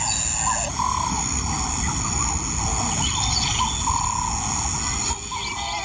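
Grassland ambience: insects shrill steadily while short wavering calls repeat over and over, and there is a low rumble. The sound changes shortly before the end as music comes in.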